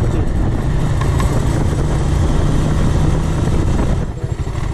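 Motorcycle engine running under way with rushing wind noise while riding. About four seconds in, it drops to a quieter, pulsing note as the bike slows down.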